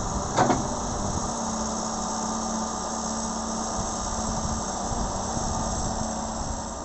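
John Deere 595D wheeled excavator's diesel engine running steadily under load while the bucket digs into soil, with one short sharp clank about half a second in and a steady low hum from about a second on.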